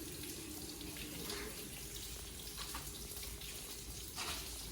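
Water-cooled stone-cutting saw running as it advances, a steady rush of its cooling water with a faint steady hum.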